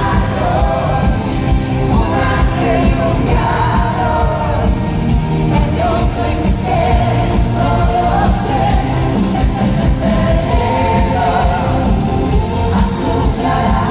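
Live pop concert heard from the audience: loud amplified dance-pop with a steady beat and a woman singing the lead vocal.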